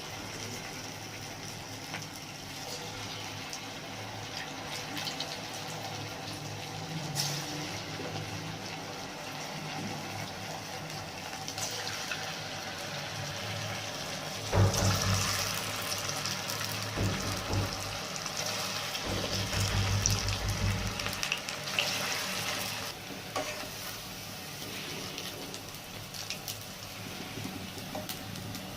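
Black-lentil batter fritters frying in hot oil in a wok: a steady sizzle. About halfway through it grows louder for several seconds, with some low knocks.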